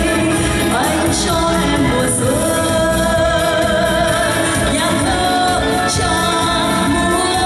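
A woman singing live into a handheld microphone over instrumental accompaniment, amplified through a PA, holding long, slightly wavering notes.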